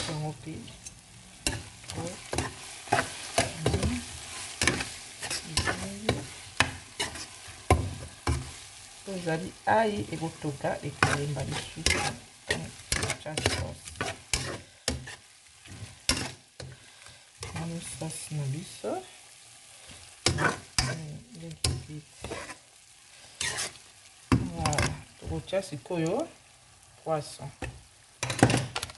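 Chopped okra, tomato and onion frying in oil in a pan while a utensil stirs them, knocking and scraping against the pan again and again at an uneven pace, with a sizzle underneath.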